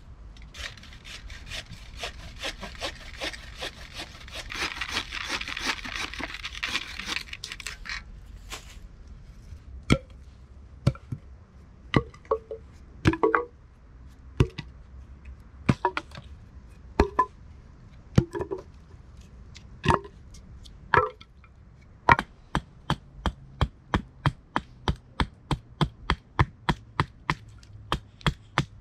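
Wooden bow saw cutting through a green pole in quick back-and-forth strokes for about eight seconds. Then come separate sharp wooden knocks about a second apart. From about two-thirds of the way in, a hatchet chops steadily at two to three strikes a second, cutting a point onto the end of a pole.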